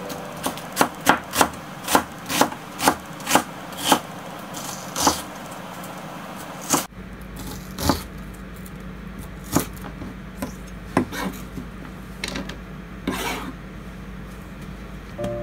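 A kitchen knife slicing an onion on a cutting board. The blade taps the board in an even run, two to three a second, for the first four seconds. After that the taps come sparser and irregular.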